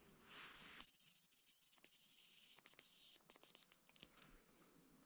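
Hazel grouse decoy whistle blown by a hunter, imitating the hazel grouse's song: two long, thin, very high whistled notes, then a wavering note and a quick run of short notes.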